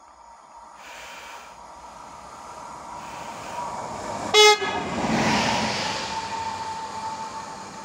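Newag E6ACTab electric locomotive running light past on the track, growing louder as it approaches, with a short horn toot about four seconds in as it comes level, then the rumble of its passing.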